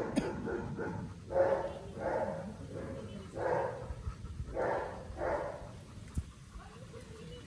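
Two Dobermans panting heavily with open mouths, in breathy gasps about once a second, while locked in a copulatory tie after mating.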